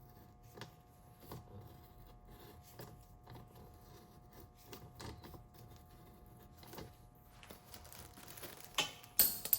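An M14 x 1.5 tap being turned into the oil drain hole of a Harley Sportster primary case with a socket, making faint irregular metal clicks. Near the end come two louder scraping rasps.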